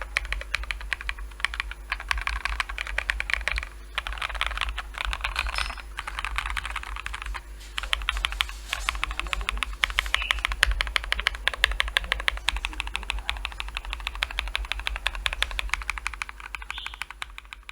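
Typing on a Nook75 mechanical keyboard with BSUN Bubble switches, aluminium plate, case and plate foam, and MW Retro light keycaps: a fast, steady stream of key clicks, with short pauses about four and seven and a half seconds in.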